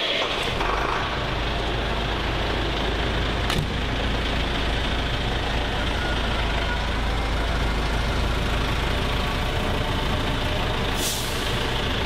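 Heavy truck's diesel engine idling steadily, with a single click about three and a half seconds in and a short hiss of air near the end.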